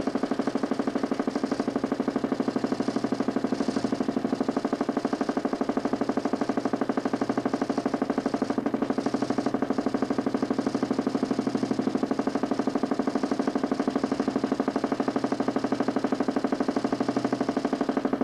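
DC motor spinning a homemade 40 cm plywood Nipkow disc on a mechanical television, a steady humming drone with a fast, even pulsing.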